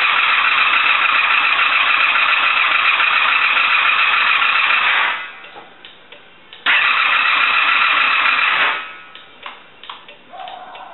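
1984 Honda V30 Magna's V4 engine cranking on the electric starter without catching, in two long tries of about five seconds and two seconds, after two years standing. A few light clicks follow.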